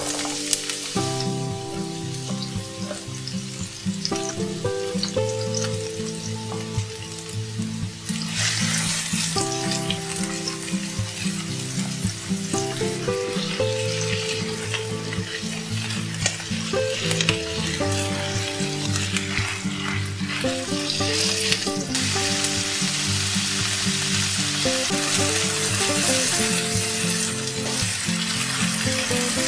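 Food frying and sizzling in a pan, the sizzle swelling louder about a third of the way in and again in the last third. Instrumental background music plays throughout.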